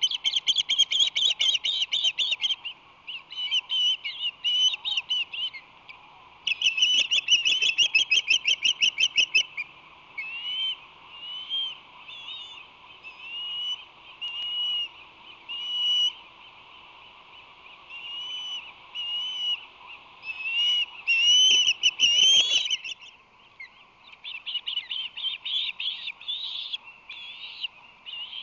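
Ospreys calling: fast runs of sharp, high whistled chirps, with slower single whistles that rise and fall in between.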